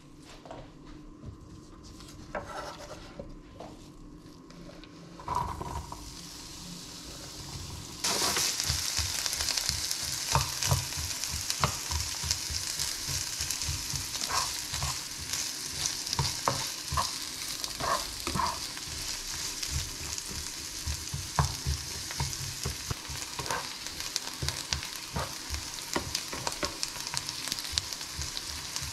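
Diced onion tipped into hot oil in a nonstick frying pan about eight seconds in, setting off a sudden loud sizzle that keeps going steadily. A spatula stirs the onion, clicking and scraping against the pan every second or so.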